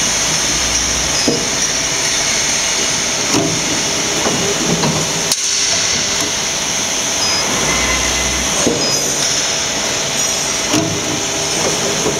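Full-auto rotary plastic-rubber sole injection moulding machine running in its automatic cycle: a steady loud mechanical hiss and hum, with two brief low thumps, one near the start and one about eight seconds in.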